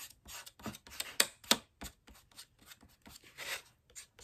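Fat black felt-tip marker scratching short strokes onto a paper plate, about three strokes a second, with two sharper clicks a little over a second in.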